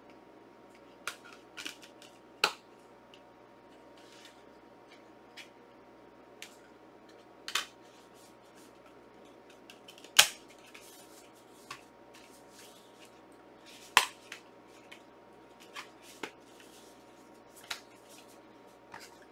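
Plastic disc cases and their packaging being handled: a run of scattered sharp clicks and snaps, a few of them louder, as cases are opened, shut and moved about.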